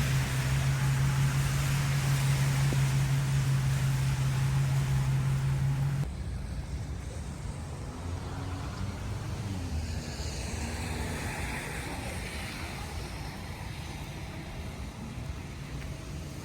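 City street ambience after rain with passing car traffic. A loud steady low hum with hiss cuts off abruptly about six seconds in, leaving quieter traffic and hiss.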